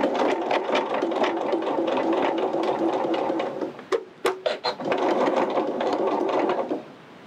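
Elna 770 sewing machine stitching a seam through cotton fleece at a steady speed. It stops about four seconds in with a couple of clicks, runs again for a few seconds, and stops near the end with the needle left down at the corner, ready for the fabric to be pivoted.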